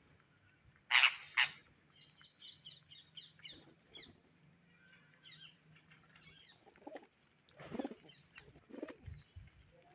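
Indian ringneck parrots calling: two loud, harsh squawks about a second in, then a quick run of short chirps, with softer, lower calls later on.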